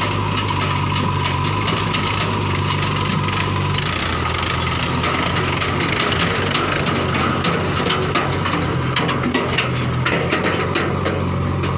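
JCB 3DX backhoe loader's diesel engine running under load as its front bucket digs into and lifts soil; the engine note shifts about four seconds in. Scraping and knocking of earth against the bucket comes through the engine noise in the middle.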